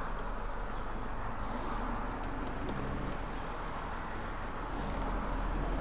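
Loaded Ford Cargo 2520 truck running on the road, its diesel engine giving a steady low hum under a constant wash of road noise.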